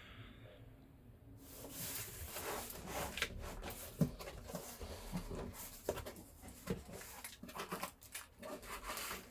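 Rustling and rubbing with many small clicks and knocks as things are handled, starting about a second in after a quiet moment.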